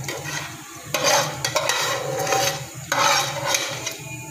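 Raw rice being scraped with a slotted spoon out of a colander into a pan of boiling water: scraping and splashing in bursts, about a second in and again around three seconds in.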